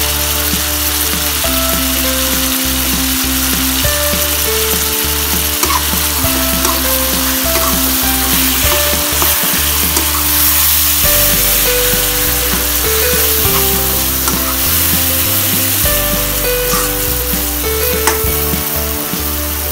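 Tomatoes and onion sizzling in hot oil in a wok, stirred with a metal spatula that clicks and scrapes now and then. A light background tune plays over it.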